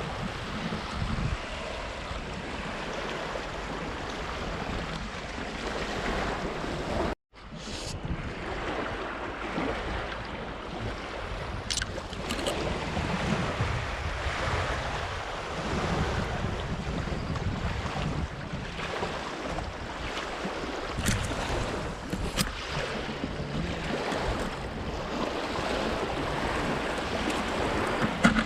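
Strong wind blowing across the microphone over choppy reservoir water, a steady rushing noise that cuts out for a moment about seven seconds in.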